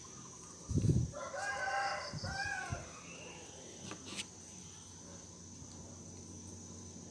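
A rooster crowing: one long call in two parts, starting about a second in, over a steady high insect whine. A dull thump comes just before the crow, and a sharp click about four seconds in.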